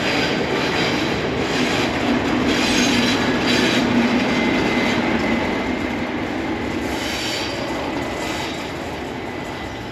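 Class 37 diesel locomotive 37800 passing with its train: engine and wheel noise swell to a peak a few seconds in, then slowly fade. A thin, steady high squeal from the wheels runs through the second half.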